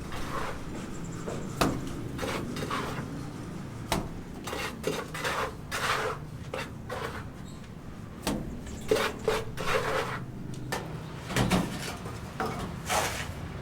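Irregular clattering: hard objects clinking and knocking against each other.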